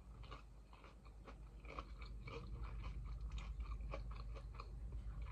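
Chewing a big air-fried chicken nugget, with rapid, fairly quiet crunching throughout.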